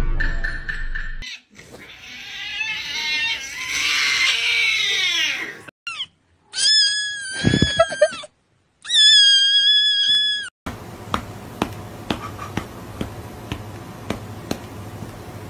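Edited sequence of cat-meme sound clips: a swelling noisy stretch with falling tones, then two long high-pitched cat cries, each about a second and a half, about six and a half and nine seconds in, the loudest sounds here. After them a steady low hum with scattered sharp clicks runs on.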